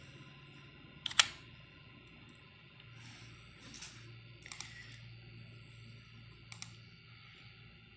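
A few short, sharp clicks from operating a computer to open a web browser, the loudest about a second in, over a faint steady hum.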